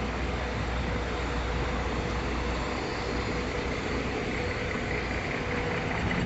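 Steady city street traffic noise, with vehicle engines running close by and a low steady hum.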